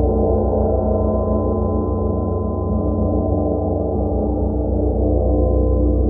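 Handmade gongs played softly with felt mallets, ringing on in a dense wash of many overlapping tones, with a steady throbbing in the low end and no single distinct strike.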